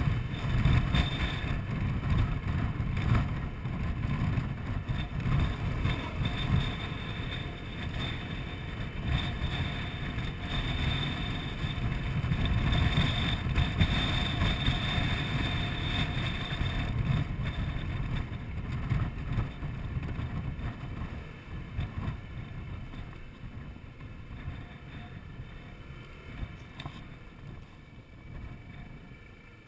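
Wind rushing over the microphone and road rumble from a Honda Forza 125 scooter under way. The noise fades steadily over the last ten seconds or so as the scooter slows for a junction.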